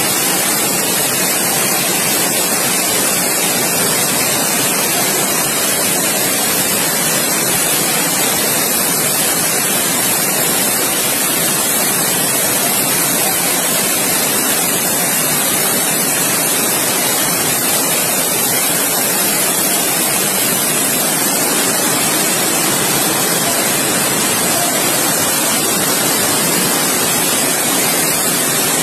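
Floodwater rushing in a torrent down a street, a steady, unbroken rushing of churning water.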